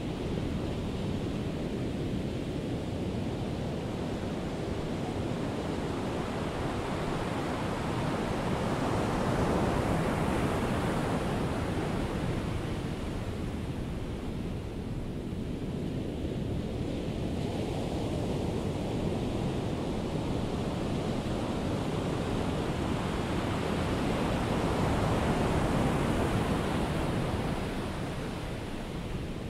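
Ocean surf: a steady rushing of waves that slowly swells and ebbs, loudest about a third of the way in and again near the end.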